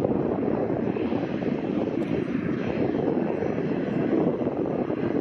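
Boeing 737's CFM56 turbofan jet engines running steadily at low power as the airliner taxis and turns on the runway.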